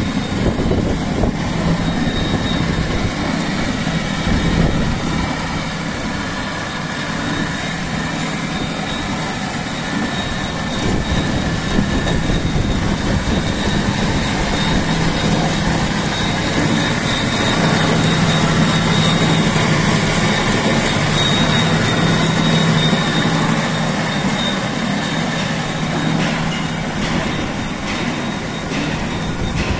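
Chain-and-slat firewood conveyor running: its drive chain and slats clatter steadily over the sprockets over a steady motor hum.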